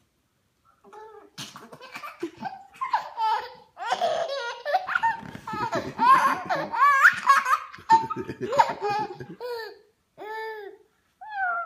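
A baby's belly laughs in repeated fits, loudest about halfway through, as a dog nuzzles his feet.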